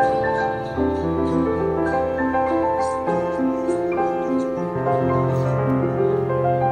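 Background piano music: a melody of separate notes played over held low bass notes.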